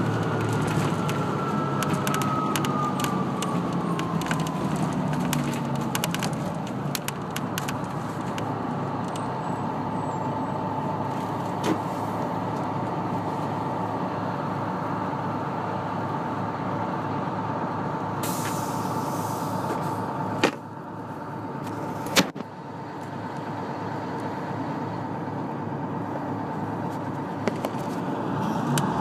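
GM New Look transit bus heard from inside: its drivetrain whine falls in pitch as the bus slows to a stop, then the engine idles with a steady hum. About two-thirds of the way through there is a brief hiss of air followed by two sharp knocks, and near the end the pitch starts rising again as the bus pulls away.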